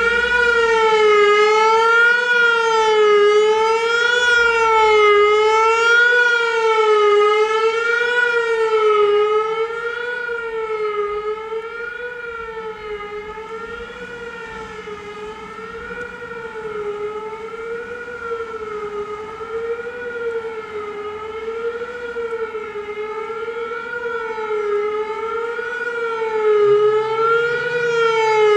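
Whelen WPS-3000 electronic tornado siren sounding the Attack signal: a wavering tone whose pitch rises and falls about once a second. It grows fainter through the middle and louder again near the end as the rotating speaker array turns away and back.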